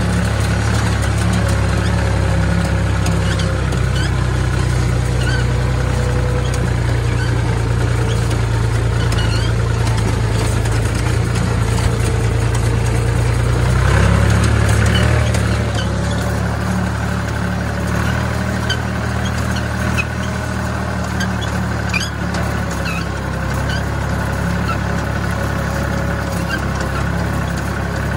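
Univerzal 445 tractor's diesel engine running steadily under way, heard from the cab. The engine note shifts about halfway through.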